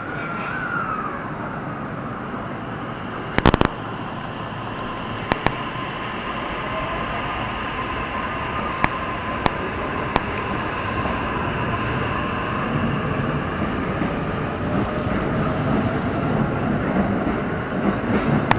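Electric commuter train running through the station: the whine of its traction motors glides up and down in pitch over a steady rumble of wheels, with a few sharp clicks, the loudest about three and a half seconds in. The rumble grows louder near the end.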